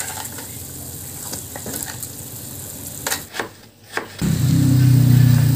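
Pot of broth with fried fish bubbling at a simmer, a soft steady hiss, with a few sharp knocks about three seconds in. From about four seconds in, a loud, steady, low motor engine hum takes over.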